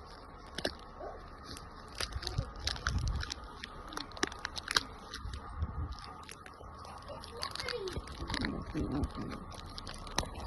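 Irregular crunching of snow, many short crunches, with gusts of wind rumbling on the microphone now and then and a faint voice late on.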